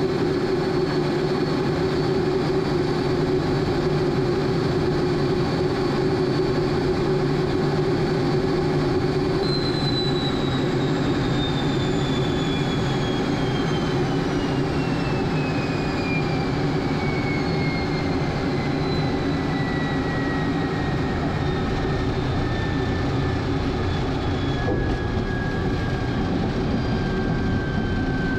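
MiG-17's Klimov VK-1 centrifugal-flow turbojet running with a steady low rumble. From about a third of the way in, its high turbine whine falls steadily in pitch as the engine is throttled back and spools down.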